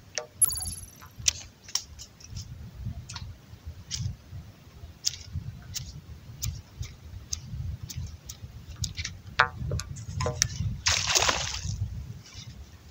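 Water splashing and sloshing around a fishing kayak, with scattered light clicks and knocks from the rod, reel and hull. A louder short splash comes about eleven seconds in.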